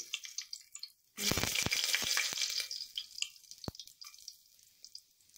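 Whole spices such as cinnamon and star anise sizzling in hot oil in a pressure cooker. A burst of loud sizzling and crackling starts about a second in, then dies down to scattered pops.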